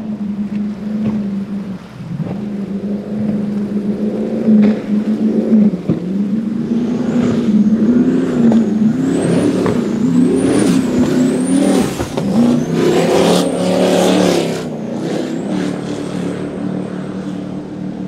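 Cigarette 42 speedboat's engines running at speed: a steady deep engine note that, from about six seconds in, grows louder and rises and falls in pitch several times, with a high whine going up and down about once a second. It settles back to a steadier, quieter note in the last few seconds.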